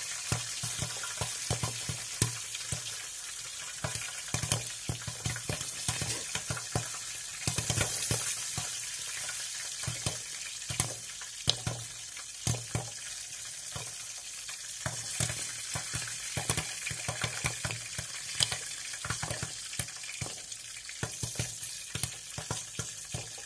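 Popcorn frying: a steady sizzling hiss with many irregular crackles and pops.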